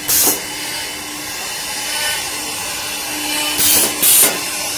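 CNC side drilling machine running with a steady hiss. Short, sharp blasts of compressed air cut in once right at the start and twice in quick succession near the end, from its pneumatic hold-down cylinders working on the panel.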